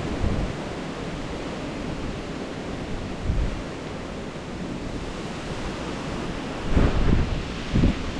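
Wind rushing over the microphone in a steady hiss, buffeting it in low gusts about three seconds in and again near the end.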